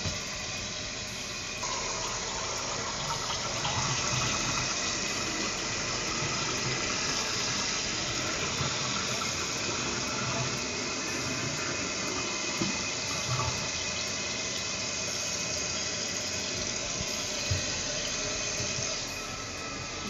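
Toilet flushing and its tank refilling through a new fill valve: a steady rush of water that swells about two seconds in and eases near the end.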